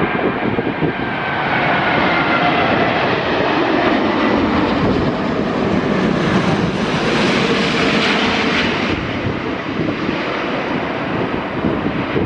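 Jet airliner passing low overhead on its landing approach. The engines' whine slides down in pitch at first, then a broad jet rush swells to its loudest about two-thirds of the way through and eases off.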